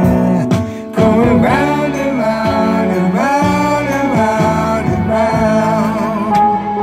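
Soul song playing: a voice singing a held, gliding melody line over band accompaniment.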